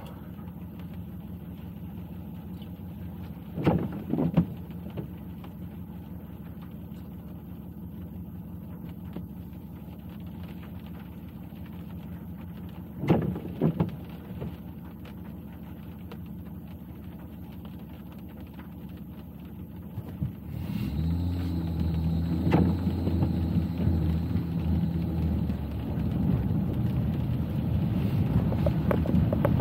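Car driving: a steady low hum of engine and road, with two brief clusters of knocks about 4 and 13 seconds in. About 20 seconds in it turns suddenly louder and deeper, with several steady low tones.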